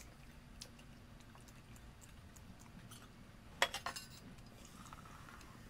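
Quiet room tone, then a short cluster of clinks and taps about three and a half seconds in as a drink can and tumbler are handled at the table.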